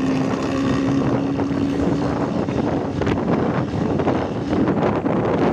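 Vehicle engines and road noise in traffic, with wind buffeting the microphone; a steady hum with overtones is held for about the first two seconds and then stops.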